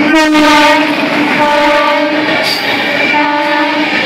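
Indian Railways WAP-7 electric locomotive sounding its horn in several loud blasts as it runs through the station at speed, over the steady rush of its coaches passing close by.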